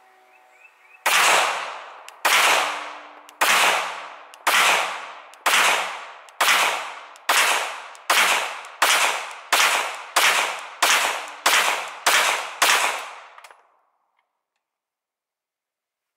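Glock 17 pistol firing fifteen 147-grain 9mm hollow-point rounds in one string, each shot trailing off in a short echo. The shots come faster as the string goes on, from about a second apart to almost two a second, and the pistol cycles every round without a stoppage.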